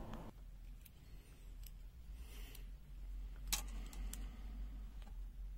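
A few faint, sharp clicks and taps of multimeter test-probe tips touching resistor leads on a test board, the strongest about three and a half seconds in, over a low steady hum.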